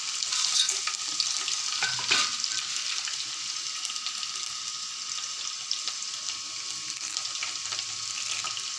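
Hot oil sizzling steadily in a kadai as a tempering of dried red chillies, crushed garlic, mustard seeds, cumin and chana dal fries, with a few sharp clicks.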